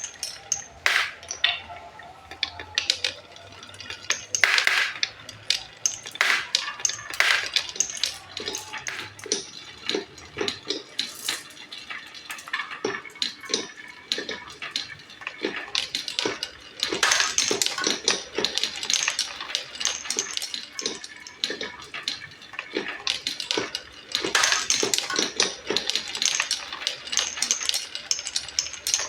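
Marbles rolling and clattering down a wooden HABA marble run and through transparent pipe: a stream of sharp clicks and clacks, thickening into longer rattling runs a few times.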